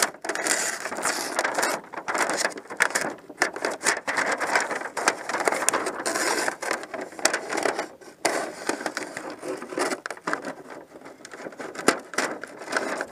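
Tyvek housewrap crinkling and rustling close by as a razor knife slices the excess sheet off at a corner, with many sharp crackles.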